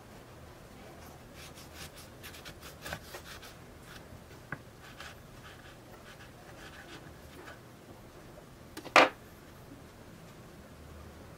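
Serrated knife sawing through an iced financier on a wooden cutting board: a run of short scraping strokes. About nine seconds in comes a single sharp knock on the board, the loudest sound.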